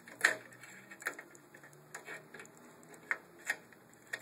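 Irregular sharp plastic clicks and knocks as a PC case's top-panel connector board is pushed and fitted into its plastic guides; the loudest click comes right at the start, followed by several lighter ones.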